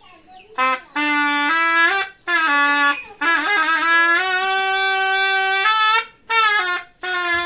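Sundanese tarompet, a wooden double-reed shawm, played in short melodic phrases with quick pitch slides and ornaments, broken by brief breath gaps. About three seconds in, one long note is held for nearly three seconds before two shorter phrases.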